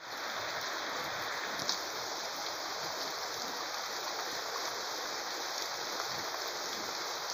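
Heavy rain falling steadily, with runoff pouring off the roof edge, making an even hiss. One brief tap stands out about two seconds in.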